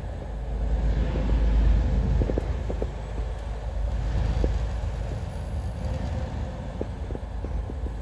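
Car driving along a wet road, heard from inside the cabin: a steady low rumble of engine and tyres that swells briefly a second or two in, with a few faint ticks scattered through it.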